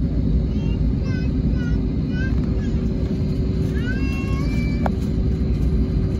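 Cabin noise of an Airbus A320 on the ground before takeoff: the engines and airframe make a steady low rumble with a constant hum. A few faint, short, high squeaky calls rise and fall over it, the clearest about four seconds in.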